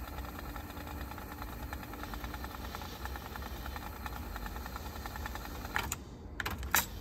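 Aiwa AD-F990 cassette deck winding its test tape: a steady whir with rapid, regular ticking from the transport. Near the end the whir stops and a few sharp clicks follow as the transport is stopped.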